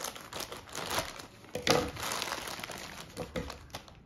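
Amazon parcel packaging being handled and unwrapped, crinkling and rustling in irregular bursts, with a sharper crackle a little under two seconds in.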